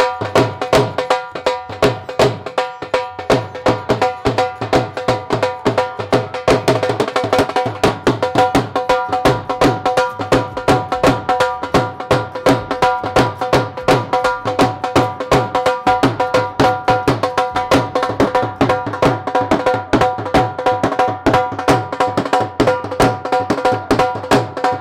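Bhangra music: a dhol beaten in a fast, steady rhythm, with held tones sounding under the drumming.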